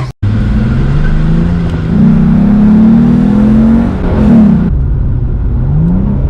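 High-powered car engine accelerating hard. Its pitch climbs, drops at a gear change about four and a half seconds in, then climbs again near the end.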